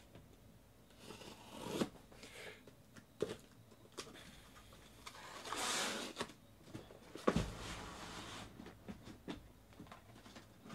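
Cardboard shipping case being opened by hand: scraping and rustling of cardboard flaps and packing tape, with several clicks and a sharp knock about seven seconds in.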